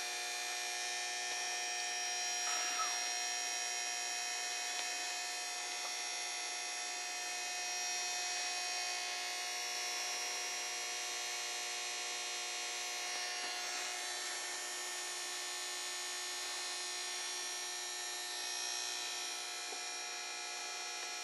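Outback MX-60 MPPT solar charge controller humming steadily while running, a faint electrical hum made of several steady high tones.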